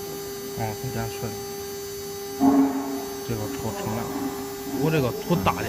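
CNC router running its job with a steady hum, with a louder swell about two and a half seconds in.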